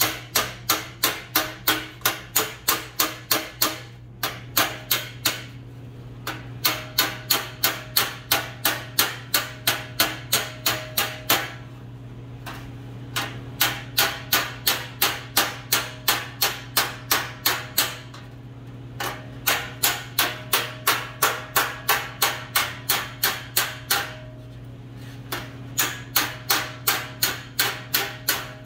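Body hammer striking a welded seam in sheet-steel panel held against the flat of a dolly (hammer-on-dolly). Quick ringing blows come about four a second, in runs broken by short pauses. The ring of the hammer landing directly on the dolly is the sign that the weld is being squished and stretched to take out welding distortion.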